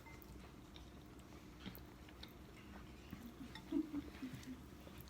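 Faint eating sounds: chewing instant noodles, with scattered small clicks and a few brief low mouth or throat sounds about four seconds in.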